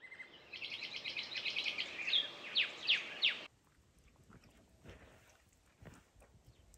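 Birdsong sound effect: a quick run of chirping trills and sharp downward-sweeping whistles lasting about three and a half seconds, cut off abruptly. Then a faint outdoor background with a few soft knocks.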